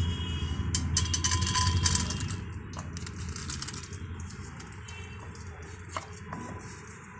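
Popcorn kernels hitting hot vegetable oil in a kadai: a loud crackling sizzle about a second in that fades to a quieter sizzle, over a steady low hum. A couple of light clinks near the end.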